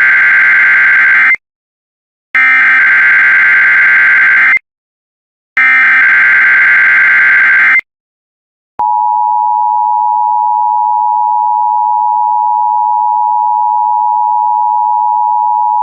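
Emergency Alert System SAME header: three harsh buzzing data bursts, each about two seconds long and about a second apart. About nine seconds in, a long, steady EAS attention tone starts. Together they open a Required Weekly Test of the NOAA Weather Radio warning alarm and EAS.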